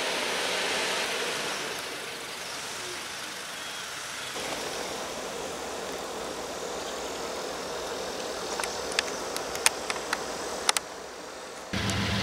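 BNSF diesel freight locomotives approaching at a distance: a steady engine rumble under a haze of wind noise, with a few sharp clicks toward the end. Just before the end the sound jumps to a closer, louder low locomotive engine drone.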